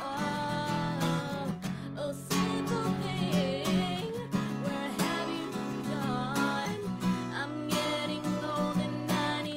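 A woman singing to her own strummed steel-string acoustic guitar, in a steady strumming rhythm with the sung melody over it.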